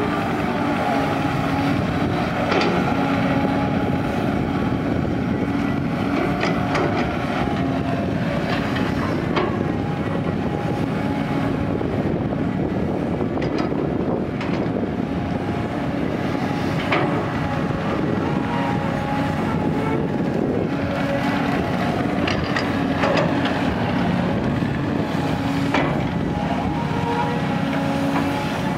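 Caterpillar 320D tracked excavator's C6.4 diesel engine running under load while it digs, with a droning tone that steps up and down in pitch as the hydraulics work. Occasional short clanks come from the bucket and boom.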